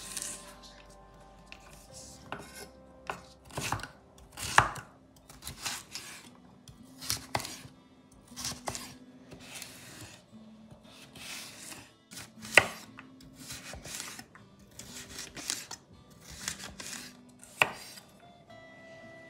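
Knife chopping food on a cutting board: sharp, irregular strokes, loosely about one a second.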